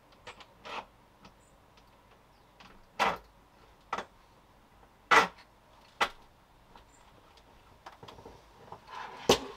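Scattered clicks and knocks of handling as a steel bolt is pushed through the skateboard bearings of a 3D-printed plastic hinge, and the black plastic tracker is then moved on the table. The sharpest knocks come about five seconds in and just before the end.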